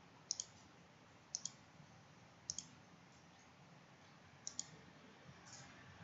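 Computer mouse clicking: four quick double-clicks about a second apart and a fainter click near the end, over near silence.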